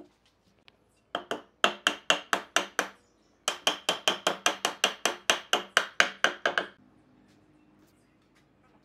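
A hammer striking wood in quick, even blows, about five a second: a run of about nine, a short pause, then about sixteen more. They drive a glued rail joint home into a square wooden bed post.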